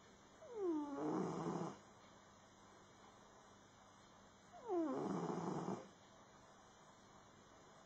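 Domestic cat snoring in its sleep: two snoring breaths about four seconds apart, each opening with a short falling whistle followed by a noisy snore lasting about a second.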